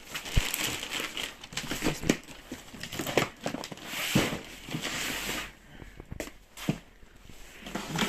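Plastic packaging bags and cardboard boxes rustling and crinkling as they are handled, with several sharp knocks; the handling dies down after about five seconds.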